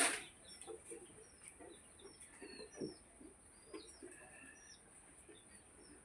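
Small birds chirping in short, scattered calls, many of them gliding downward, over a steady high hiss. A sharp click right at the start is the loudest sound.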